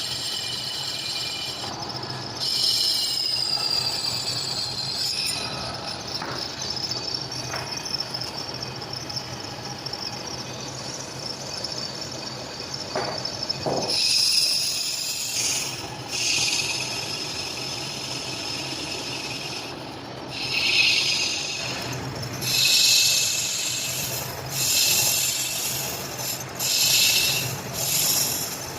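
Metal being machined, with a high-pitched squealing whine from the cut that swells and fades in repeated surges over the last several seconds.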